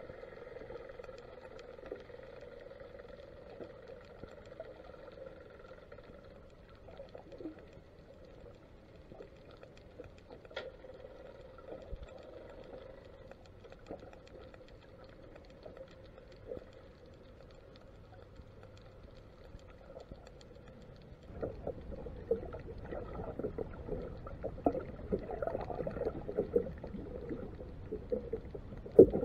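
Muffled underwater sound picked up by a camera in a waterproof housing: a steady low hum with scattered faint clicks. About two-thirds of the way through it turns louder and rougher, with crackling and knocking noise.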